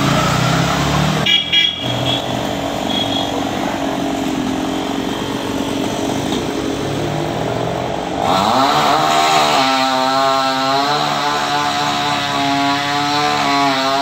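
Petrol chainsaw running in a tree. At about eight seconds it is throttled up with a rising whine and cuts into a limb, its pitch wavering up and down as the bar meets the wood.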